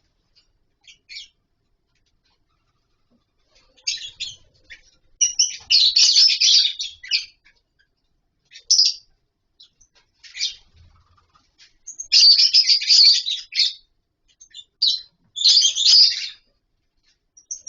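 Lovebirds in a colony aviary chirping in shrill, high-pitched bursts. Some are single brief chirps and others are dense runs a second or two long, with short silences between them.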